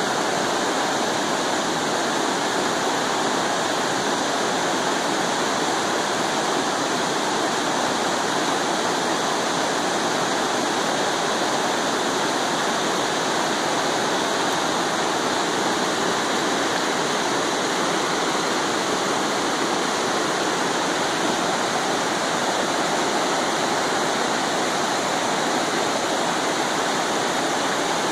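Small rocky stream rushing over rock ledges in shallow whitewater rapids and a low cascade: a steady, unbroken rush of water.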